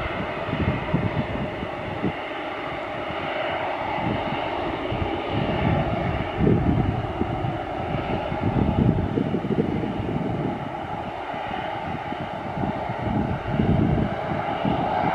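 Jet engines of an easyJet Airbus A320-family airliner taxiing: a steady engine whine and hum, with gusts of wind buffeting the microphone.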